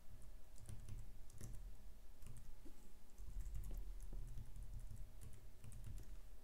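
Typing on a computer keyboard: irregular keystrokes in short runs, over a low steady hum.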